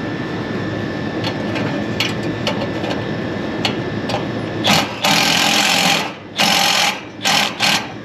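Cordless power driver run in bursts to tighten the bolts on a rooftop condenser fan motor's mounting bracket: one longer run about five seconds in, then three short ones, over a steady machinery hum.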